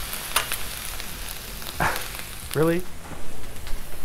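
Chorizo, vegetables and hash browns sizzling steadily on a Blackstone flat-top griddle, with a few sharp clicks of metal spatulas against the steel cooking surface.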